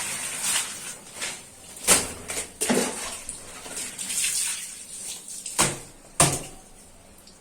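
Water splashing as plastic split-AC parts are washed, with irregular rushes of noise and three sharp knocks, two of them close together near the end.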